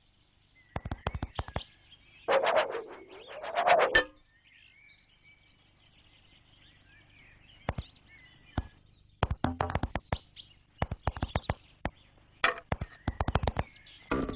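Cartoon sound effects: a character's squeaky, sliding vocal noise about two seconds in, quick clicks and knocks in clusters, and faint high bird chirps in the middle stretch.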